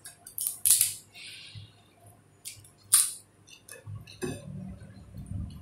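Crisp papad (papadam) cracking and crackling as it is broken by hand on a plate, with two loud sharp cracks, about a second in and at about three seconds, and smaller crackles between. Softer low handling sounds follow near the end.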